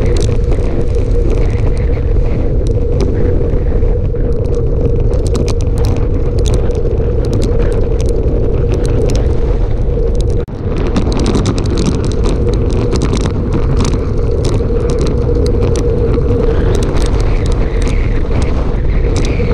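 Wind rushing over the microphone of a bicycle-mounted camera on a fast road descent: a loud, steady rush with a constant hum, peppered with small clicks and rattles. It drops out for a moment about halfway through.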